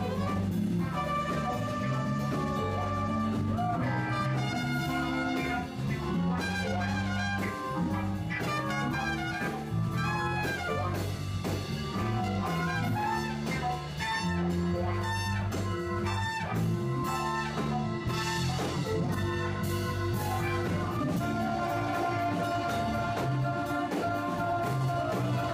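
A jazz band with a brass section playing continuously, with trumpet-led melody over a steady bass line and drums, recorded in mono on an iPhone's built-in microphone.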